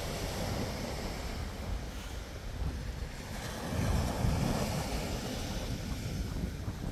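Surf washing onto the beach, with wind buffeting the microphone. The low rumble swells briefly about four seconds in.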